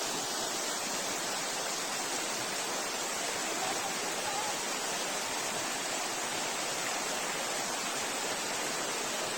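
Water of Prather Creek Falls pouring over its rock ledges, a steady rushing with no change in strength.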